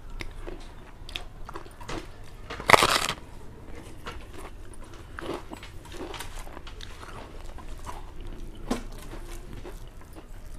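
A person chewing a mouthful of rice mixed with raw mango dal and raw mango pickle, with small mouth clicks throughout and one louder, short burst of noise about three seconds in.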